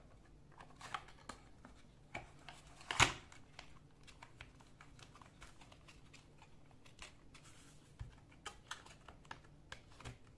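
Cardboard boxes of a tarot deck being pried open and handled: scattered light taps, clicks and scrapes of cardboard, with one louder knock about three seconds in.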